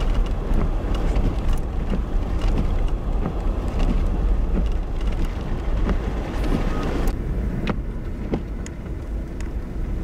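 Car driving on a snow-covered highway, heard from inside the vehicle: a steady low road and engine rumble with scattered sharp clicks and ticks. The higher hiss eases off about seven seconds in.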